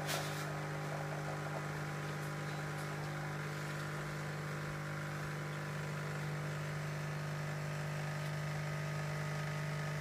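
Nescafé Dolce Gusto capsule coffee machine's pump buzzing steadily while it dispenses a hot chocolate into the mug.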